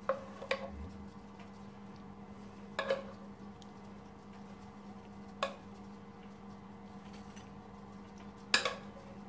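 Metal spoon clinking against ceramic plates as mushroom sauce is spooned out: about five short, sharp clinks, the loudest near the end, over a steady low hum.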